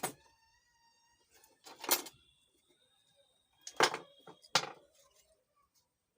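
A few sharp knocks and clatters of tools and the amplifier's driver board being handled while it is unscrewed and taken out: one at the start, one about two seconds in, and a close pair near four and a half seconds.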